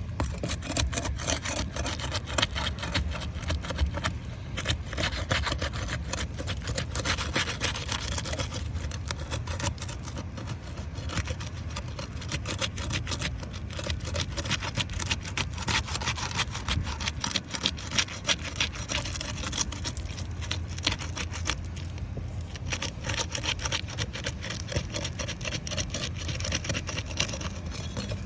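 Continuous dense crackling and scraping of asphalt shingles being worked loose, their sealant strips broken and the shingles pried up, over a steady low rumble.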